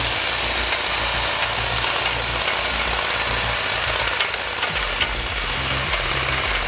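Small engine of a compact tracked forestry machine running steadily at low revs, with a pulsing low rumble and a few light clicks about four seconds in.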